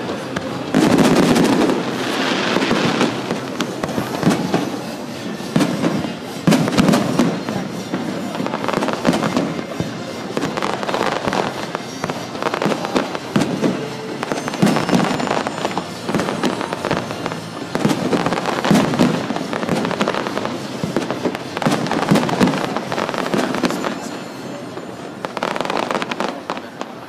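Aerial fireworks bursting in quick succession, bangs mixed with dense crackling, a fresh burst every second or two, easing off near the end.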